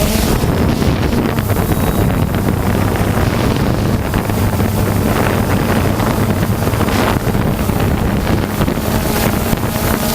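DJI Phantom 2 quadcopter's motors and propellers running at a steady hum, under heavy wind noise on the microphone.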